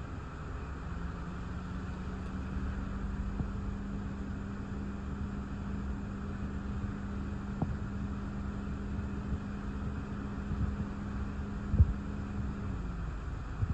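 Low rumble of gusty thunderstorm outflow wind, with a steady low hum that starts about a second in and stops near the end. A single sharp thump comes a little before the end.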